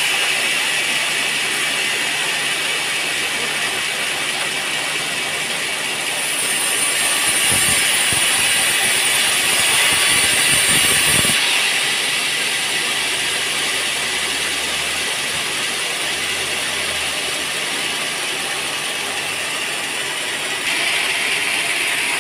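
Sawmill bandsaw running and cutting through a teak log: a steady, loud mechanical noise with no pauses.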